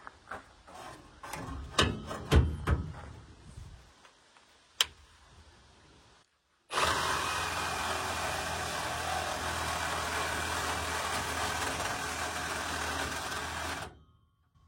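Handling knocks and clicks, then a power saw running steadily for about seven seconds, cutting through copper tubing, before stopping abruptly.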